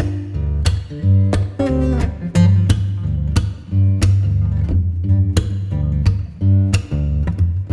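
Background music led by strummed guitar over a steady bass line.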